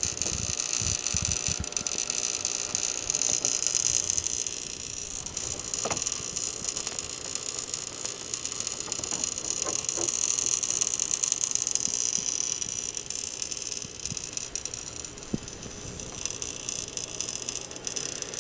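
Electrical arcing in a double-pole circuit breaker carrying about 18 amps: a steady hiss with irregular crackles and ticks. The wire at its terminal has its insulation burned off; the electrician thinks the arcing is inside the breaker but says it could be at the terminal connection, most commonly a loose, under-tightened screw.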